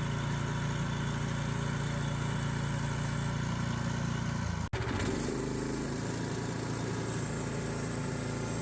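Gasoline engine of a portable bandsaw sawmill running steadily. It is briefly cut off about halfway through, then carries on with a slightly changed tone.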